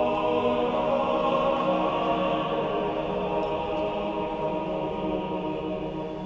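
Background music of slow, sustained chords held steady, with a choir-like texture.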